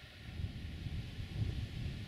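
Wind buffeting the microphone: uneven low rumbling gusts that rise just after the start and peak about a second and a half in.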